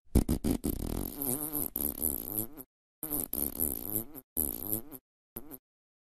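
Person farting loudly: a few short sputters, then a long buzz of over two seconds that wavers in pitch, then three shorter ones.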